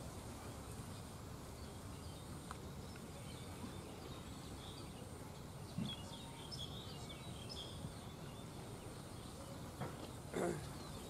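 Outdoor background noise: a steady low rumble with birds chirping about six to seven seconds in and a thin high steady tone. A short knock comes just before the chirps, and a brief louder sound near the end.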